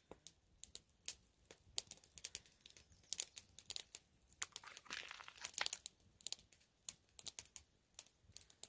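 Clear plastic zip-top bag crinkling in quick, irregular crackles as hands handle it and press the steak inside.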